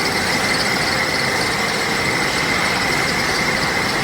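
Wire drawing machine running steadily at speed: a dense even mechanical noise with a constant high whine.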